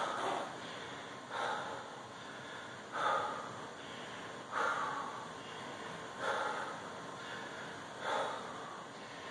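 A man breathing hard while holding a side plank, with a heavy exhale about every one and a half seconds as he works to catch his breath mid-workout.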